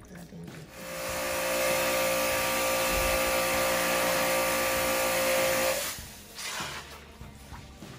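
Portable electric pressure washer running during an aircon cleaning: a steady motor whine with one strong tone. It starts about a second in and cuts off suddenly after about five seconds.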